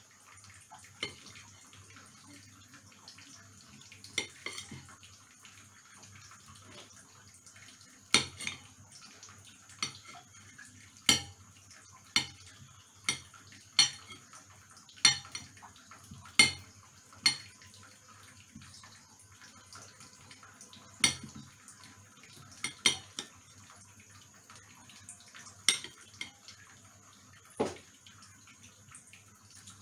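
A knife clinking against a ceramic bowl as boiled chicken is stripped off the bone, about twenty sharp clinks at irregular intervals, coming thickest from about eight to seventeen seconds in, over a faint steady hum.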